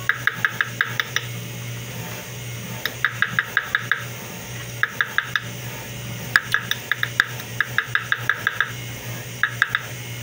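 Light, ringing metal-on-metal tapping on a steel setting punch held against the gold prongs of a diamond-set ring, setting the diamonds by closing the prongs over the stones. The taps come in quick runs of four to ten, about six a second, with short pauses between runs, over a steady low hum.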